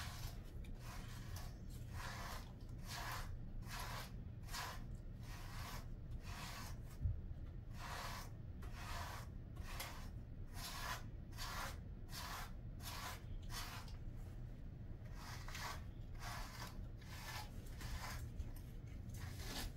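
A pet brush drawn through a dog's thick double coat in quick repeated strokes, about two a second, each a short scratchy swish. There is a brief pause about fourteen seconds in, and a single low thump about seven seconds in.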